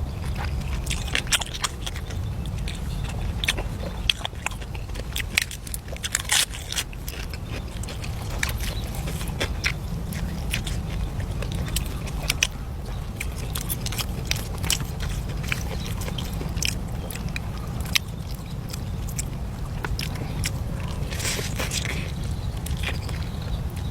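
Eating sounds: crunching and chewing, with irregular sharp clicks and scrapes of utensils, over a steady low rumble.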